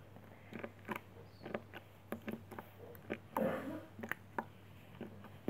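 Jiggly jelly slime being squeezed and pulled in the hands, making irregular sticky clicks and squelches, with a longer, louder squish about three and a half seconds in.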